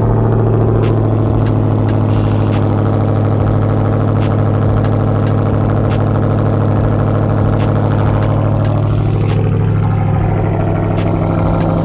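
2021 Ram TRX's supercharged 6.2-litre V8 idling steadily just after a cold start, with a deep, even exhaust note. The idle note shifts slightly about nine seconds in.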